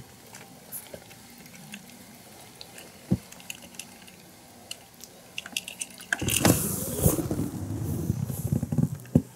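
Fishing tackle handled close to the microphone: scattered light clicks and clinks, then from about six seconds in a few seconds of loud rustling and rattling, with a sharp knock near the end.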